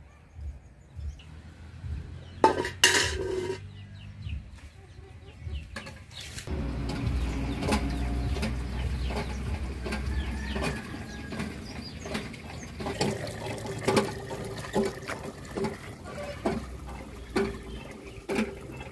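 Hand pump being worked: repeated metallic clanks of the handle strokes over water pouring from the spout into a steel bucket. Hens cluck, and a metal pot knocks loudly a few seconds in.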